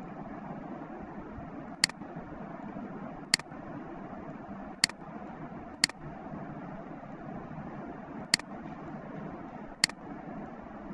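Computer mouse button clicking six times, single sharp clicks one to two and a half seconds apart, over a steady background hiss.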